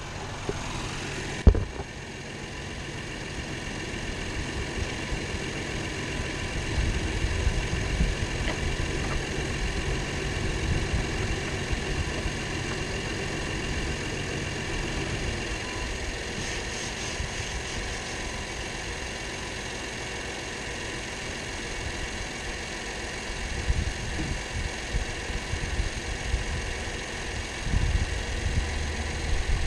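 2016 Acura MDX's 3.5-litre V6 idling steadily after its oil change, run for a minute or two before the oil level is rechecked. A single sharp knock about a second and a half in, and low rumbling at times.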